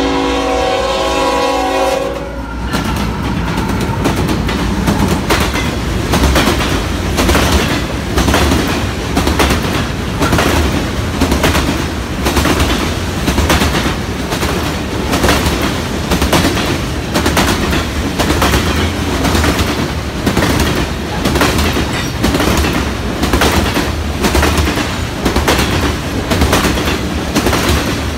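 A diesel freight locomotive's multi-note air horn sounds a chord that cuts off about two seconds in. Then a freight train of loaded hopper cars rolls past close by, its steel wheels clacking over the rail joints in a steady rhythm about once a second, over a constant rumble.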